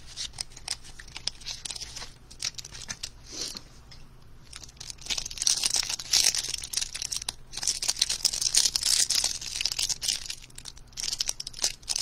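Trading-card pack wrapper being torn open and crinkled by hand: scattered crackles, getting denser and louder from about five seconds in, then easing off about a second before the end.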